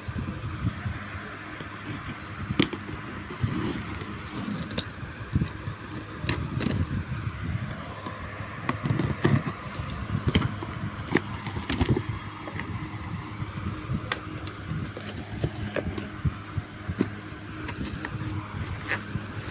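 A parcel's packaging being handled and opened: irregular rustling and crinkling with many sharp clicks and crackles, over a steady low background hum.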